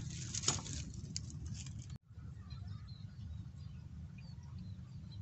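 Rustling and clicks of handling noise for about two seconds, then a sudden cut to a steady low rumble, typical of wind on the microphone, with faint high chirps scattered over it.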